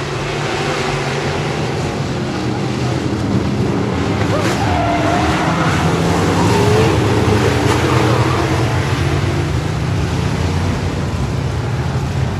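A field of stock cars running laps on a short oval, their engines blending into one steady loud drone that swells as the pack comes past about halfway through.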